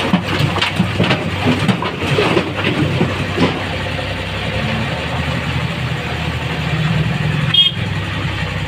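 JCB backhoe loader's diesel engine running while a bucketful of earth and broken brick tips into a steel tractor trolley, clattering and thudding for the first few seconds. The engine then runs on steadily, with a brief high-pitched squeak and knock near the end.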